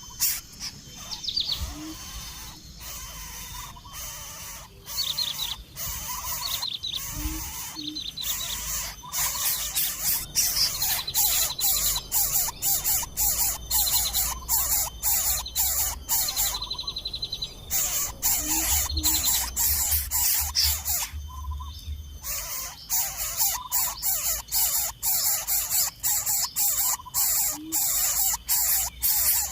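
Birds chirping: many short, rapid calls with higher chirping notes, getting louder about a third of the way in.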